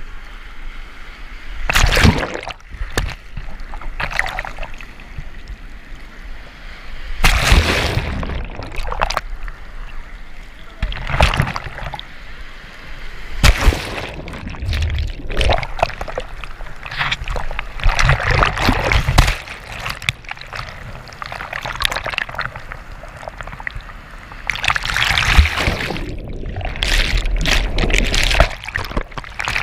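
Breaking surf and whitewater washing over a GoPro held in the waves, the camera going under and coming back up: several loud rushes and splashes of water, with churning water between them.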